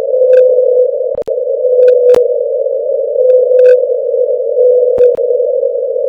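Hydrophone recording of the 52-hertz whale's call, played sped up into the audible range: a steady mid-pitched hum with a clearer tone swelling out of it about every second and a half, and a few sharp clicks.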